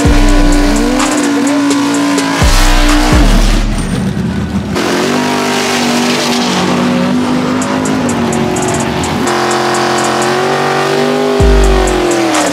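Drag cars doing burnouts: tyres squealing in long, wavering tones over engines revving, first a Honda Civic and then a 1957 Chevy gasser near the end. A music track with a ticking beat and deep bass hits runs underneath.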